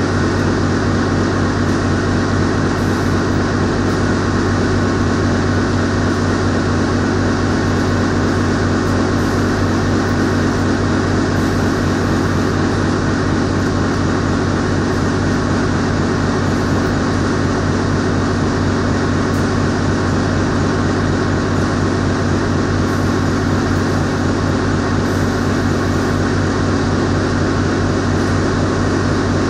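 Corrugated box production line machinery running: a steady, loud mechanical drone with a low hum that does not change.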